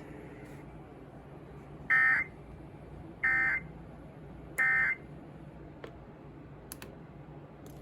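NOAA Weather Radio's EAS end-of-message signal: three short bursts of SAME digital data tones, about a second apart, marking the end of the weekly test, over steady radio hiss and hum.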